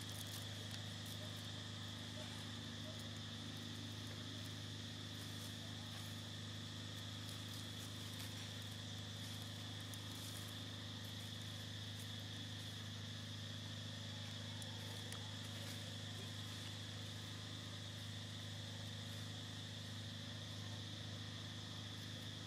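Steady outdoor ambience: a constant high insect drone over a low, even hum.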